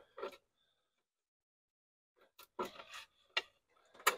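Electrical wire being fed by hand through the hole of a PVC junction box: after about two seconds of near silence, a short patch of rubbing and scraping, then a few sharp clicks, the loudest near the end.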